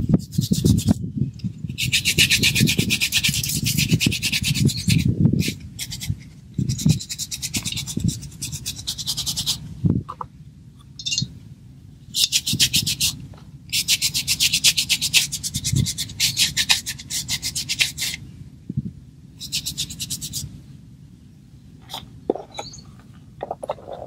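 Scratchy, rasping brushing of a hand-held bundle of green plant stems being rubbed, in repeated spells of one to four seconds with short breaks between, over a low rumble of handling.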